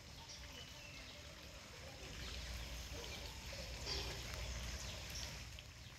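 Faint outdoor ambience: a steady low rumble with a few short, faint high chirps scattered through it.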